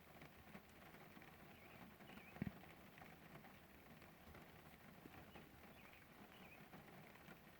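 Faint patter of rain with birds chirping faintly now and then, and one short thump about two and a half seconds in.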